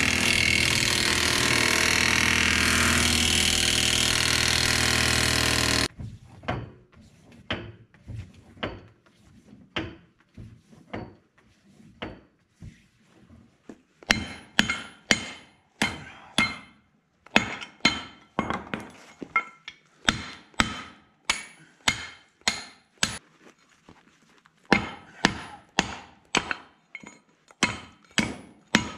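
Air impact wrench running steadily on a nut at a pickup's leaf spring, cutting off suddenly about six seconds in. Then a long run of hammer blows on a metal spring part on a concrete floor, about one and a half a second: lighter at first, heavier from about halfway, with a short pause near the end.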